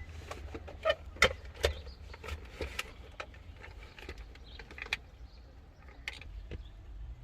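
Irregular clicks and light knocks of plastic interior trim and parts being handled and pried apart, busiest in the first two seconds, over a steady low hum.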